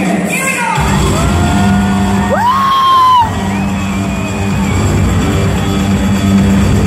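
Arena PA music booming through a large hockey arena, a heavy bass beat coming in about a second in, with fans whooping and yelling over it.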